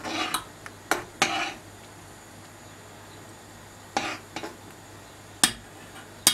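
Metal ladle knocking and clinking against the rim and side of a stainless steel pot of soup as it is stirred: three quick knocks in the first second and a half, then a few more spread out, the loudest two near the end. A faint steady hiss runs underneath.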